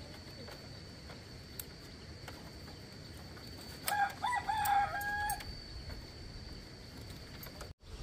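A rooster crows once, about four seconds in, a call lasting about a second and a half. Behind it run a thin steady high tone and occasional light clicks of bamboo strips being worked.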